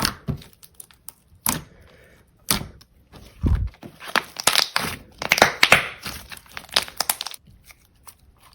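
Slime being squeezed and pressed by hand, making crackly pops. A few single pops come first, then a dense run of crackling lasts about four seconds and stops suddenly.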